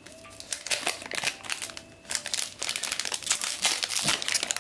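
Foil booster pack wrapper crinkling and crackling as it is handled and torn open, in two stretches with a short pause about two seconds in.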